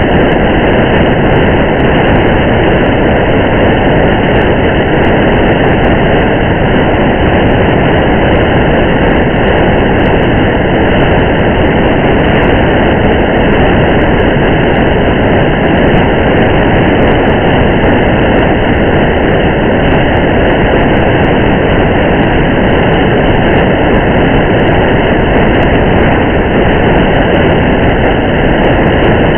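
Steady, unbroken rumble of a car driving on a highway in the rain: tyre, road and rain noise, with faint scattered ticks.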